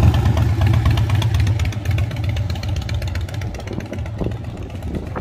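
Motorcycle engine running at low revs, slowly fading over the few seconds.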